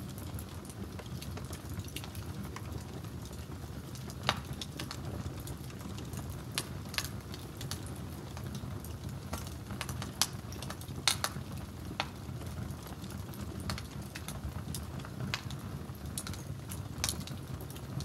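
Wood fire crackling: scattered sharp pops and snaps over a steady low rumble.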